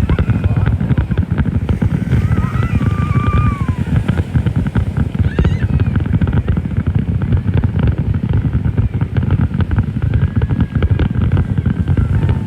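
Fireworks display: a dense, unbroken run of bangs and crackles with a deep rumble, with a few voices rising above it about two to four seconds in.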